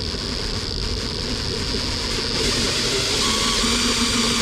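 Power drill with a hole saw running steadily and slowly boring a hole for a USB socket, with a steady motor whine throughout; the cutting gets louder about halfway through and a lower steady tone joins near the end.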